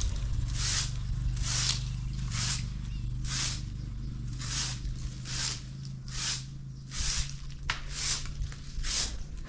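A short hand broom of dry grass stalks sweeping over paving blocks, one scratchy, hissing stroke about every second. A low steady hum runs underneath and fades out about seven seconds in.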